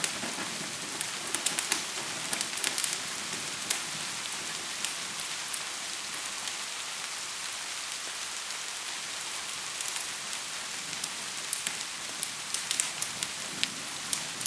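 Steady hiss of gentle rain, with sharp crackles and pops from a wood fire coming in a few clustered spells.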